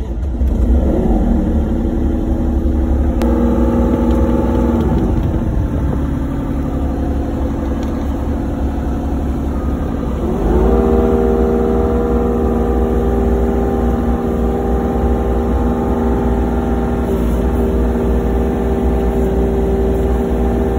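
Kubota mini excavator's diesel engine starting on the key and settling to a steady run, heard from inside the cab. About ten seconds in its pitch rises and holds at a higher engine speed.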